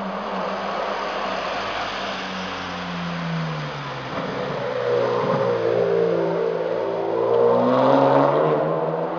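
Ferrari Enzo's V12 engine driving past. Its pitch sinks over the first few seconds, then climbs as it accelerates, and it is loudest about eight seconds in before fading.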